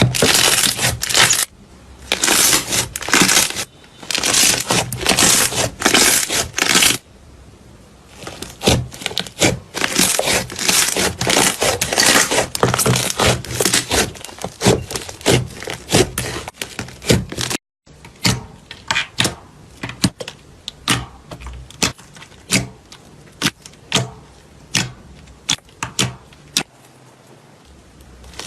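Slime being pressed and squeezed by hand, giving dense crackling and clicking. After a short break about 18 seconds in, sparser sharp clicks and pops follow.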